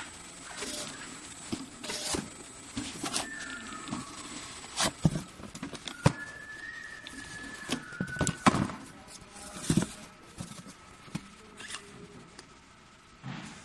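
Bottom labeling machine running: irregular clicks and knocks as cardboard boxes ride the conveyor and labels are applied, over a low hum. A faint high whine comes and goes.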